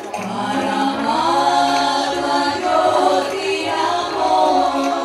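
A group of voices chanting together in long held notes that glide up and down in pitch.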